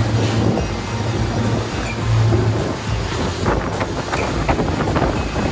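Wind buffeting the microphone over the steady drone of a power catamaran's engines and the rush of water along the hulls as the boat runs at speed.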